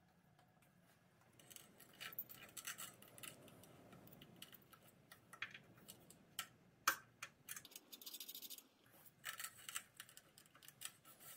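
Hands handling 3D-printer wiring and cable connectors: faint rustling and scratching with several small clicks, the sharpest about seven seconds in, and a brief scratchy stretch just after it as a round plug is fitted.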